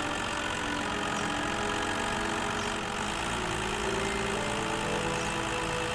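Cartoon sound effect of a tow truck's engine running steadily while towing, over soft background music with held notes that change pitch a few times.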